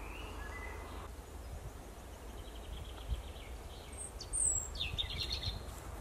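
Songbirds of a spring forest chorus singing faintly: a few short whistled notes and quick trills, the loudest, a high falling whistle followed by a rapid trill, about four to five seconds in. A low steady rumble runs underneath.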